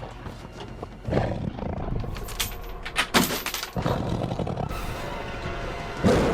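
Film sound effect of a werewolf roaring and snarling, with sudden loud crashes about a second in, around three seconds in and near the end.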